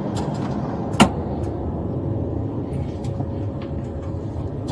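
Steady low rumble inside a running police patrol car, with one sharp click about a second in.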